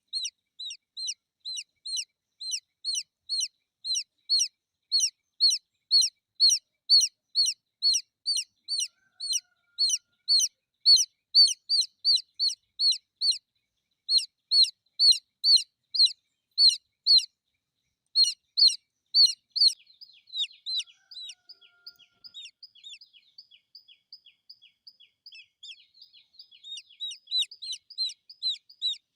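A baby chick peeping loudly and over and over, short chirps that fall in pitch at about two a second with a few brief pauses, calling for its mother hen. About two-thirds of the way in the chirps turn fainter and quicker, then grow loud again near the end.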